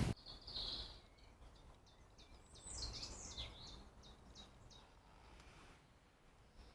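Faint birdsong: a quick run of short, high chirps in the first three seconds or so, over a faint outdoor hiss.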